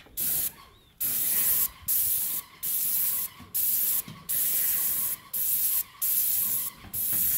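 Paint spray gun spraying roof paint in about eight short bursts, each roughly a second long with brief breaks between, as the trigger is pulled and released in passes.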